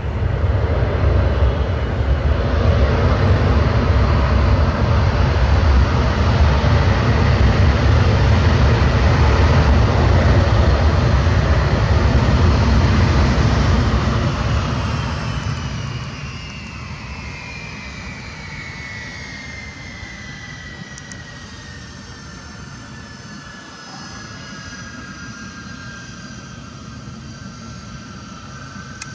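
Boeing C-17 Globemaster III's four Pratt & Whitney F117 turbofan engines roaring loudly as the jet rolls out on the runway after landing. About halfway through the roar drops away, and a falling jet whine settles to a steadier, quieter engine sound as the aircraft slows to taxi.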